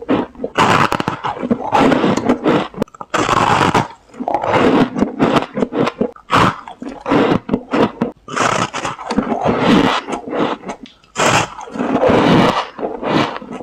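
Soft freezer frost crunching close to a lapel microphone in irregular bursts, as fingers press and scoop it in a tray and bites of it are chewed.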